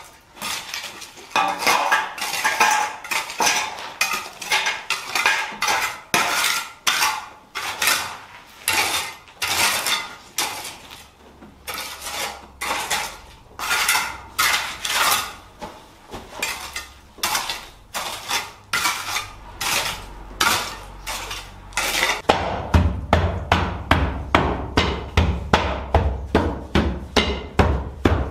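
A small hand tool scraping and clinking through dry earth and stones in steady strokes, about one and a half a second. About 22 seconds in it changes to a wooden hand tamper pounding the soil fill in quicker, deeper thuds, compacting the fill under a floor before concrete is poured.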